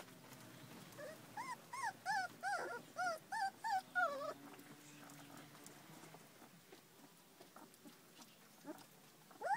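Puppies whimpering and yelping as they wrestle: a quick run of about ten short, high rising-and-falling cries over three seconds, then a pause and a few more cries near the end.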